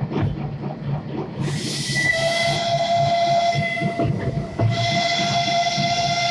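Steam whistle of a Borsig narrow-gauge steam locomotive blowing two long blasts with a short break between them, a hiss of steam just before the first, over the rumble of the moving train. It is the 'attention' (baczność) warning signal.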